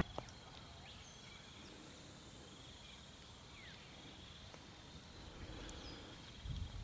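Quiet rural outdoor ambience: a steady faint high insect trill, with a few short bird chirps and a soft low thump near the end.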